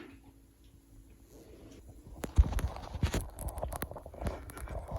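Quiet for about two seconds, then a run of irregular knocks and heavy thumps, like footsteps or a phone camera being handled close to the microphone.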